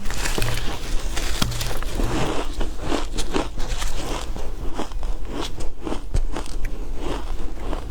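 Shaved ice being bitten and chewed, a dense irregular run of short crunches.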